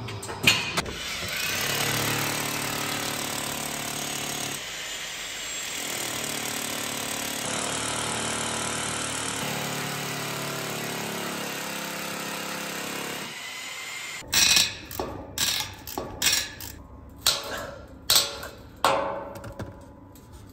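A hammer drill runs steadily with a motor whine while boring into a concrete floor. Near the end come about eight sharp hammer blows on metal, typical of setting anchor bolts through pallet-rack base plates.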